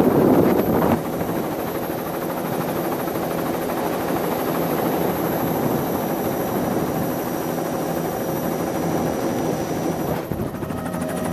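Helicopter's engine and rotor running steadily, heard from aboard, with a constant high whine over the noise. It is louder for the first second; about ten seconds in the sound dips briefly and then turns more humming, with steady tones.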